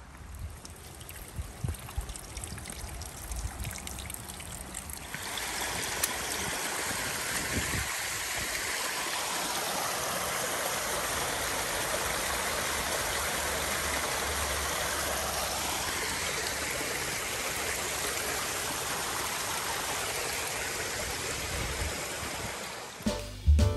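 Steady rush of flowing water that starts abruptly about five seconds in, after a quieter stretch with a few soft knocks, and holds even until near the end.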